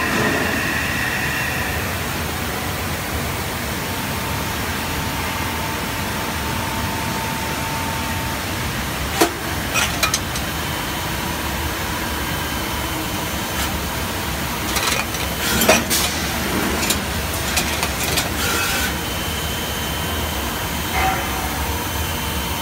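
Citizen K16 Swiss-type sliding headstock automatic lathe running: a steady machine hum, with scattered sharp clicks and knocks through the middle of the stretch.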